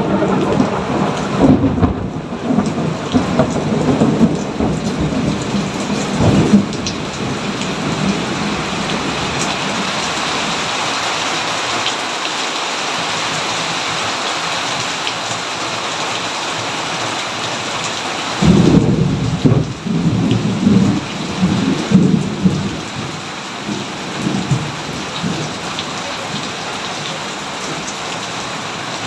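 Steady rain with rolling thunder. One roll rumbles through the first few seconds and dies away by about seven seconds. A second breaks suddenly about two-thirds of the way through and rumbles off over several seconds.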